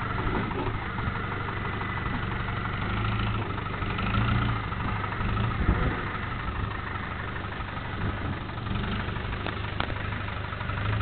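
Land Rover Discovery's engine running steadily at low revs as the 4x4 crawls over a rough off-road trial section, with a single sharp knock about six seconds in.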